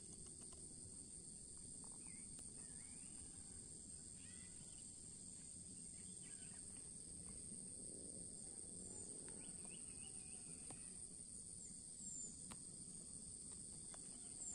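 Faint, steady high-pitched chorus of insects such as crickets, with a few soft bird chirps over it.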